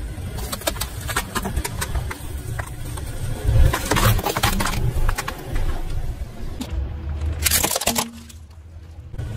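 Things cracking and snapping as they are crushed under a car's tyre, over the low rumble of the car. The loudest crunching comes about four seconds in and again near the end.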